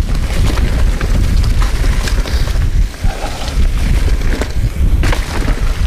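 Mountain bike riding fast down a dirt trail: wind buffets the microphone with a loud, constant low rumble, over the hiss of tyres on dirt and leaves, with scattered clicks and rattles from the bike over bumps.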